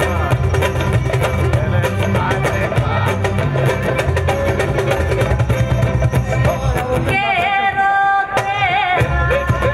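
Live acoustic folk band music: acoustic guitar and a drum keep a steady beat under a singing voice. About seven seconds in, the beat drops back while a singer holds one long wavering note for just over a second.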